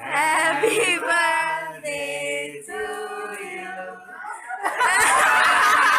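A group of people singing a birthday song together in unison with held notes. About three-quarters of the way through, the singing gives way to louder overlapping voices as the group cheers and talks.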